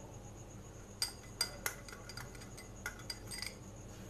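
A spoon clinking lightly against a bowl, about six short taps spread between about a second in and three and a half seconds.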